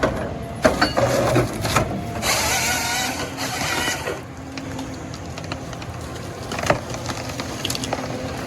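John Deere 1270G forest harvester at work: mechanical clatter with several sharp knocks, and a loud rushing noise lasting about two seconds, starting a little after two seconds in.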